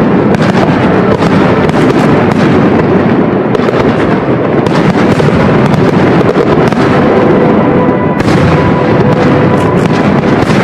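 Aerial fireworks shells bursting in rapid succession, many overlapping bangs with a continuous rumble between them.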